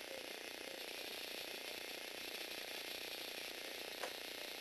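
Small electric motor and plastic Lego Technic gear train of a four-legged walking robot running steadily with a fine, rapid ticking as the robot walks. A single sharp click comes about four seconds in.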